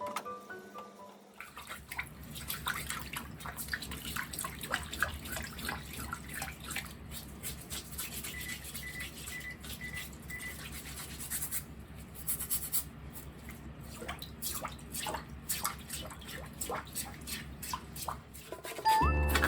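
A stiff brush scrubbing greasy range-hood parts in rapid, uneven strokes over a steady low hum.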